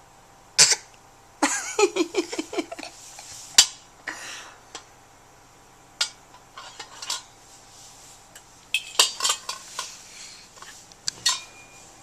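A child forcing out fake hiccups: short, sharp gulping sounds from the throat, scattered and uneven, with a quick run of voiced hics about one and a half seconds in and another cluster near the end.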